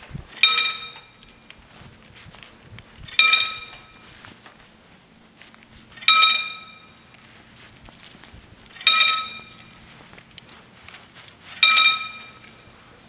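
Level-crossing warning bell striking five times, about three seconds apart, each strike ringing and dying away within about half a second. It sounds while the crossing's barriers lower for an approaching train.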